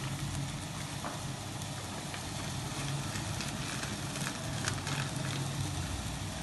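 Hot oil sizzling in a pan with ginger-garlic paste and chili flakes frying in it: a steady hiss with scattered sharp crackles, over a low steady hum.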